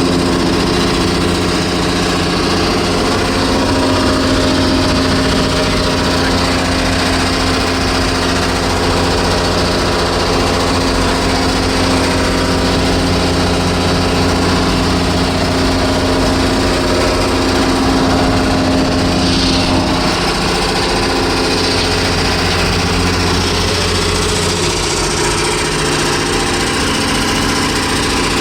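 A motor running steadily and loudly, with a steady hum under a rushing noise, and a slight change in its low sound about twenty seconds in.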